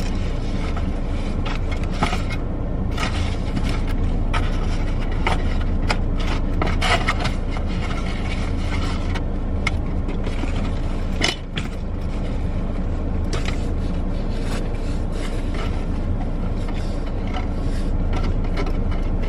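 Steady low rumble of a car heard from inside the cabin, with frequent short scrapes and clicks of something being handled close to the microphone.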